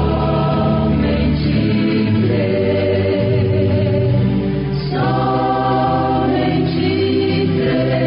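Choral gospel music: a choir holding sustained chords that shift to new harmonies about five seconds in and again near the end.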